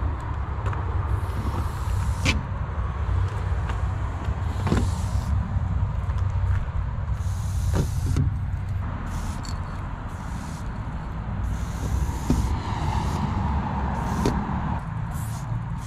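Aerosol spray-paint can hissing in repeated short bursts, each up to about a second long, as lines are sprayed onto a wall, over a steady low rumble with a few sharp knocks.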